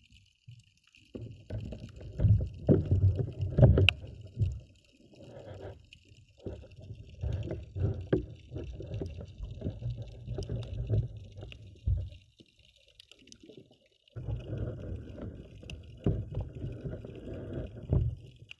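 Water sloshing and rumbling around an underwater camera as it is moved through shallow water, in irregular low surges with short lulls, over a faint steady high hiss.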